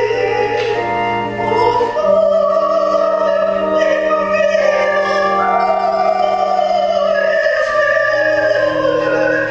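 Slow music with long held, wavering notes over sustained chords that change every few seconds.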